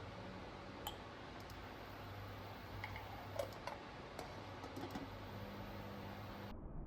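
A few light, scattered clicks and taps over a steady background hiss; the hiss cuts off abruptly near the end.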